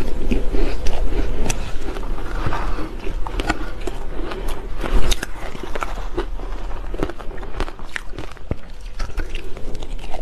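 Close-miked crunching and chewing of shaved ice coated in matcha powder, with many sharp crackles as the ice breaks between the teeth. A metal spoon scrapes and scoops through the ice in a plastic bowl.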